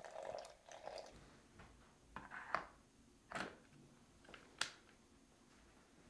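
Water poured in a thin stream from a gooseneck kettle onto coffee grounds in a Gorenje electric Turkish coffee pot, trailing off about a second in, followed by a few short light clicks and knocks.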